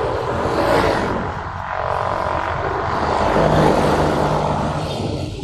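Motor scooters riding in city traffic: engines running under heavy wind rush across the microphone. An engine note comes up about three seconds in, and the noise eases near the end.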